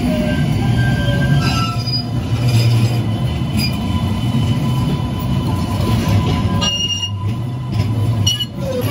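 Green Line light-rail trolleys rolling slowly on a tight curve of track: a steady low rumble of motors and wheels, with thin, high wheel squeals that come and go.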